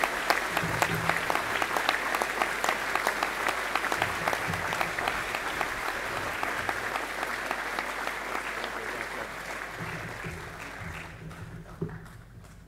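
Audience applauding: many hands clapping together, fading away near the end.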